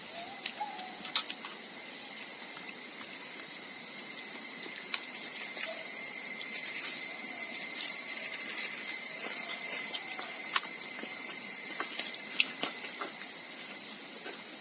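Insects droning in one steady high-pitched tone that swells louder through the middle and eases off again, with scattered faint clicks.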